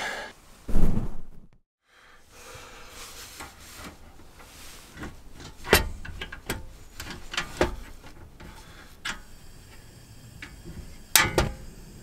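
Handling noises in the cramped inside of a small car: a loud thump about a second in, then scattered clicks, knocks and rubbing as things are moved about and handled.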